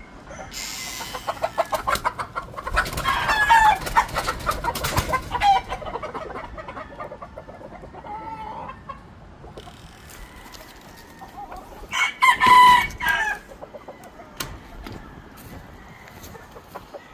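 Gamefowl roosters crowing and clucking: a long loud stretch of calls about three seconds in and another loud call about twelve seconds in, with quieter clucking between.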